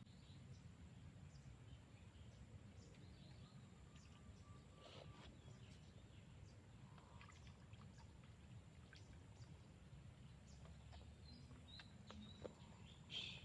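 Near silence: faint outdoor ambience with a low steady rumble, scattered soft clicks and a few faint bird chirps, the clearest near the end.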